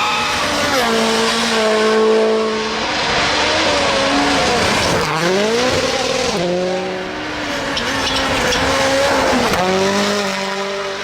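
Rally car engine revving hard, its pitch climbing and then dropping sharply several times as it is driven through the gears and off the throttle, over a constant rush of tyre and road noise.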